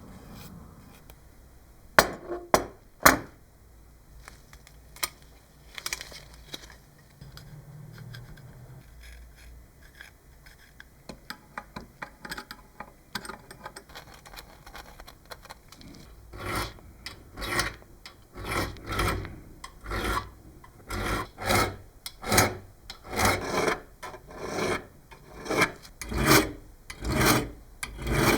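Hand abrasive work: a tool drawn back and forth in rasping strokes, roughly three every two seconds, through the second half. Three sharp knocks come about two seconds in.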